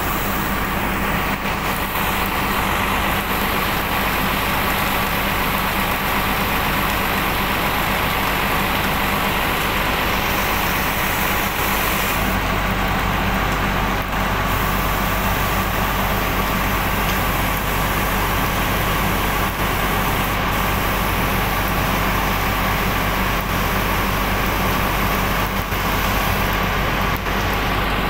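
A machine running steadily with a low, even hum and no pauses; the lowest part of the hum grows a little stronger about twelve seconds in.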